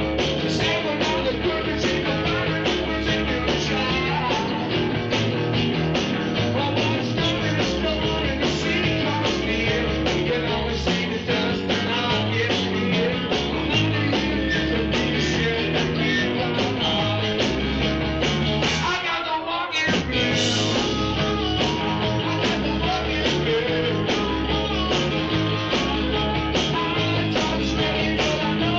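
A blues band recording playing with a steady drum beat. The bass and drums drop out for about a second about two-thirds of the way through, then the band comes back in.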